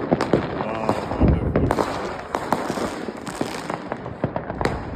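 New Year's Eve fireworks and firecrackers going off all around: many overlapping bangs and crackles at irregular intervals, close and distant.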